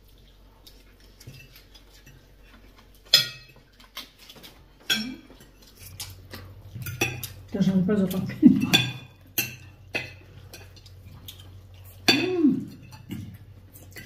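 Forks and cutlery clinking against dinner plates at a meal: scattered sharp clinks a second or more apart, with a few brief murmured voices between them.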